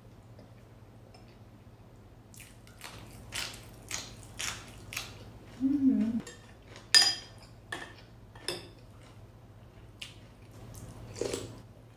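Metal cutlery clicking and scraping against a ceramic plate while eating: a quiet start, then an irregular run of sharp clinks from a couple of seconds in, the loudest about seven seconds in. A short low voice-like hum comes just before the middle.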